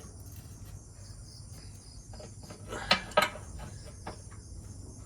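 Crickets chirping steadily in the background. A little under three seconds in there are two sharp knocks in quick succession, with a few fainter clicks before them.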